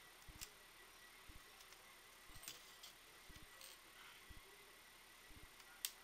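Faint scattered clicks and light knocks of a Dell laptop's plastic casing being handled during disassembly, with one sharper click near the end.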